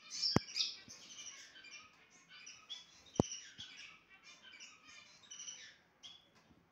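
A flock of small cage birds chirping and twittering in many short, high calls. Two sharp clicks stand out, one about a third of a second in and one about three seconds in.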